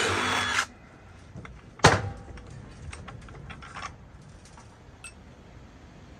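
Impact wrench rattling for about half a second as it spins off a terminal nut on an electric motor, then a sharp metal clank about two seconds in, followed by light clinks of loose hardware and copper lugs being handled.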